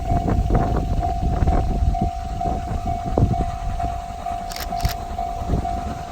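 Level crossing alarm ringing with a steady, evenly repeating high tone, over the low rumble and irregular knocking of a passing train's wheels on the rails.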